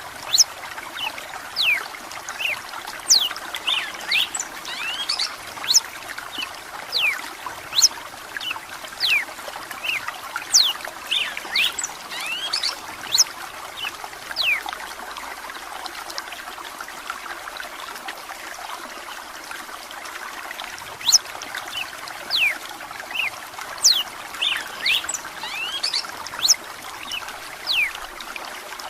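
Red-cowled cardinal singing in runs of quick whistled notes over a steady trickle of running water; the singing pauses for several seconds around the middle.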